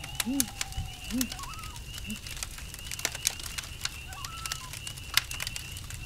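Campfire crackling with a steady trill of crickets, while an owl gives a run of soft, evenly spaced hoots, about one a second, that ends about two seconds in. A few short, higher gliding calls come over the top.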